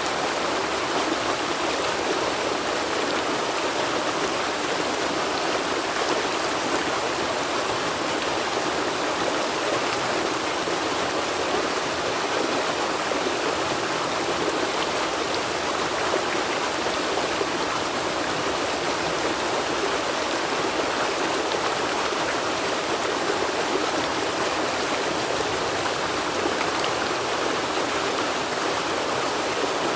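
River water flowing steadily over stones, a continuous, even rushing with no changes.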